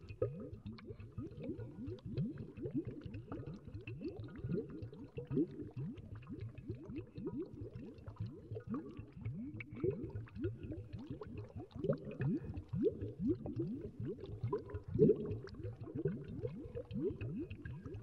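Water at a rolling boil: a dense, irregular stream of low bubbles bursting and gurgling, with no let-up.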